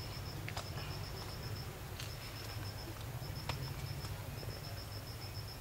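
Insect chirping: short trains of rapid high pulses repeating about every second, over a steady low rumble. A few faint sharp clicks come about half a second, two seconds and three and a half seconds in.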